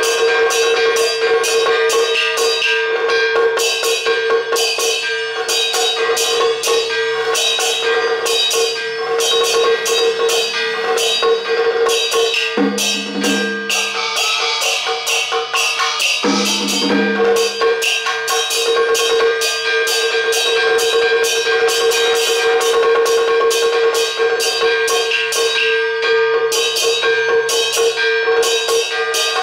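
Taoist ritual music: steady percussion strikes at about three a second over a sustained high held tone, with a lower pitched part coming in twice around the middle.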